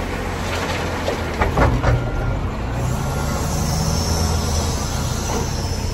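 Heavy diesel engines of a wheel loader and a dump truck running steadily, with a short clatter of loud knocks about a second and a half in as stone from the loader's bucket drops into the steel dump body.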